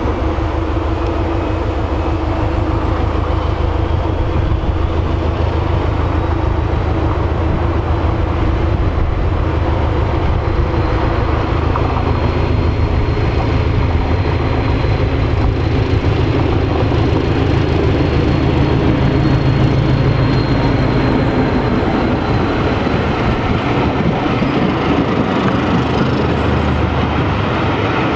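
BR Class 73 electro-diesel locomotive working under its diesel engine as it hauls a train of coaches past, growing louder to a peak as it goes by, followed by the coaches rolling past on the rails.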